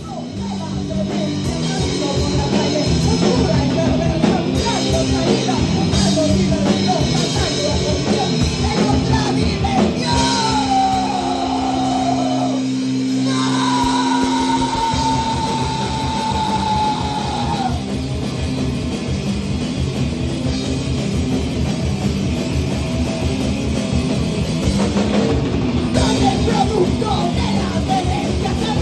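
Loud live heavy punk/metal band playing: a full drum kit and distorted instruments kicking in at once, with a long high note that slides slowly down in pitch from about ten to eighteen seconds in.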